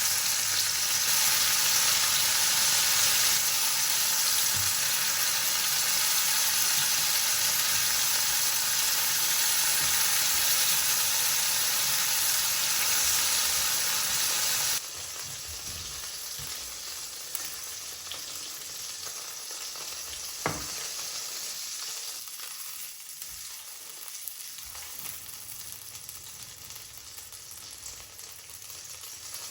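Food frying, sizzling steadily in hot fat. About halfway through the sizzle drops suddenly and carries on softer, with a single short knock a few seconds later.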